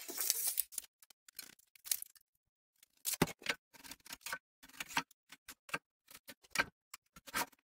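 Scattered light clicks, taps and short scrapes of hand work on a steel channel: a square set against the metal and a pencil line drawn across it.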